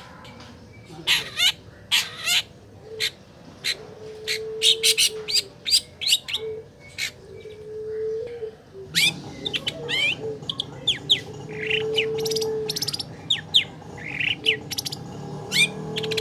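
Long-tailed shrike (cendet) singing: a rapid, irregular run of sharp chirps, squawks and quick downward-sweeping calls.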